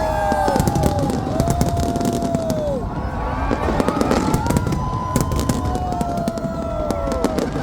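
Fireworks bursting: a dense run of sharp pops and crackles, with several whistling tones that hold and then slide down in pitch.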